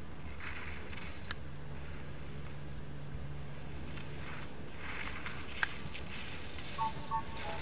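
Faint hiss of ski edges scraping on hard-packed snow as a giant slalom racer carves through the gates, over a steady low hum. There are a couple of sharp clicks, and a few short high beeps near the end.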